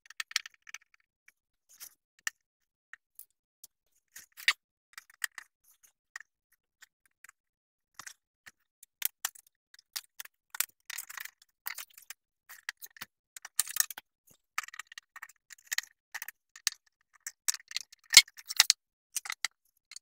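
Fast-forwarded disassembly sounds of an EcoFlow River power station: quick, irregular clicks, ticks and small clatters of tools and plastic parts being handled. They are sparse at first, come much more densely from about 8 seconds in, and the loudest click comes near the end.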